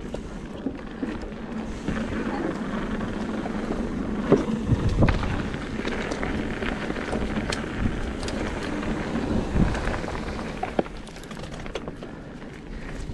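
Mountain bike riding over a dirt trail: wind rumbling on the camera microphone and tyre noise, with scattered knocks and rattles from bumps. It grows louder about two seconds in and eases off near the end.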